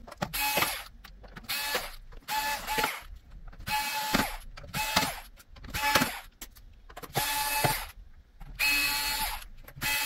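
Electric screwdriver whirring in repeated short bursts, roughly one a second, backing out the small screws of a laptop's bottom panel.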